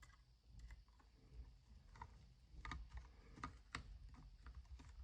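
Faint, irregular light clicks and ticks of a small Phillips screwdriver and a tiny screw working against a metal airsoft pistol frame.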